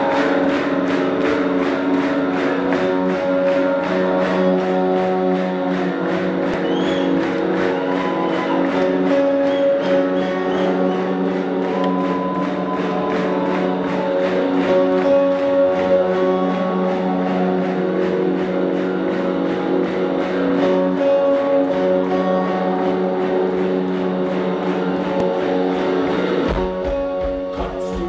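Live rock band playing an instrumental passage: electric guitars ring out sustained chords and lines over drums keeping a steady, driving beat. Near the end a heavier, deep low pulse comes in.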